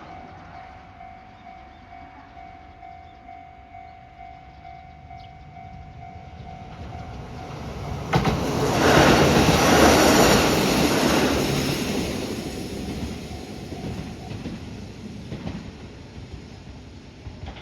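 Japanese level-crossing warning bell dinging in an even pulse, about two strikes a second. About eight seconds in, a diesel train on the JR Takayama Main Line passes close by with wheel and rail noise, loud for a few seconds and then fading away. The bell stops a little before the train noise dies out.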